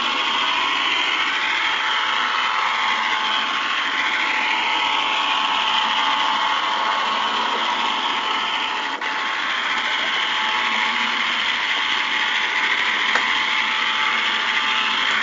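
Model train running on its track: the locomotive's small electric motor and wheels give a steady whir whose pitch wavers, heard close up from a camera riding on the train. The sound dips briefly about nine seconds in.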